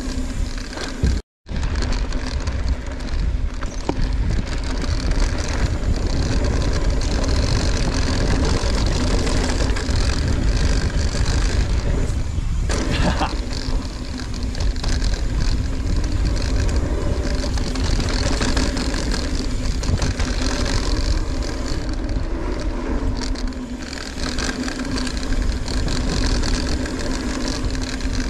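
Mountain bike riding down a dirt trail: steady wind rush and low rumble of tyres on the ground, heard from a camera on the bike or rider. The sound drops out for a moment about a second in.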